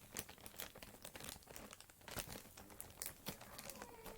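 A bag being handled, crinkling and rustling in irregular light crackles, with a faint squeak near the end.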